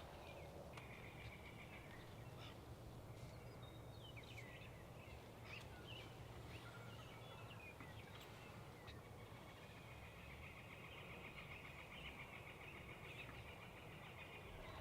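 Quiet open-country ambience with small birds calling faintly: scattered short chirps and a long, dry trill near the end.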